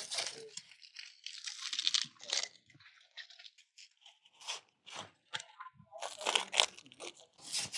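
Irregular crunching and tearing sounds, in short bursts of varying loudness.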